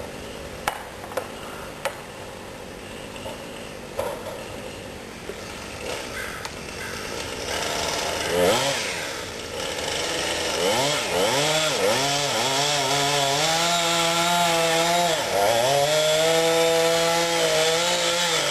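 A few sharp knocks in the first seconds, then a chainsaw revs up about eight seconds in and runs under load cutting into a cedar trunk, its pitch dipping now and then as it bogs in the wood.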